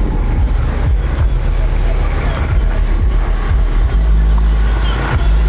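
Loud, steady low rumble of vehicles, with a car rolling slowly past and indistinct voices in the background.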